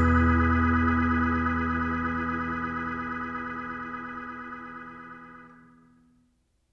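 Background music: a held organ-like keyboard chord fading out slowly until it stops about six seconds in.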